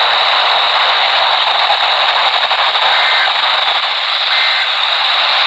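Loud, steady radio static hiss, with a broadcast signal too weak to carry any words through.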